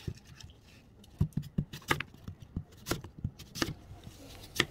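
Apple pieces being handled and set down on a wooden cutting board: an irregular run of sharp knocks and taps, starting about a second in, with one louder knock near the end.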